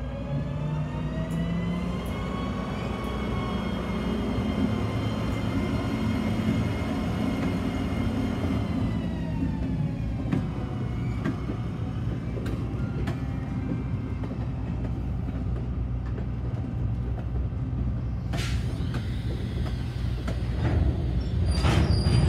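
Diesel engine of San Joaquin Valley Railroad locomotive 2405 running under power as it moves a train of covered hopper cars. Its pitch rises over the first couple of seconds, holds, then drops about nine seconds in. Under it the wheels rumble steadily on the rails, with a few knocks and a louder passage near the end.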